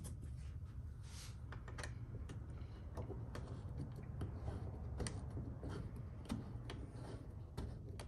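Irregular light clicks and taps of metal bolts being lined up and started by hand into a kayak seat support bracket, over a steady low hum.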